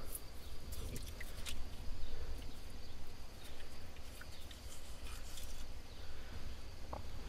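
Quiet outdoor ambience: a steady low rumble, a faint steady high insect drone, and scattered small clicks and drips as a muddy glass bottle is handled over standing water.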